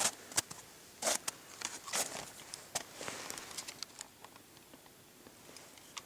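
Irregular crunches and clicks, denser in the first few seconds and sparser later.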